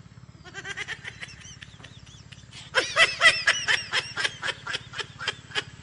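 A man gulping a milky drink straight from a large plastic bucket in quick, throaty swallows, about four a second. There is a short run of gulps early, then a longer, louder run from about three seconds in.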